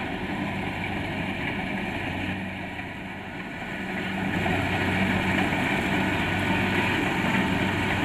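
Kubota DC-70 Plus rice combine harvester's diesel engine running steadily under load as it cuts through the crop, a continuous hum that grows louder about halfway through as the machine comes closer.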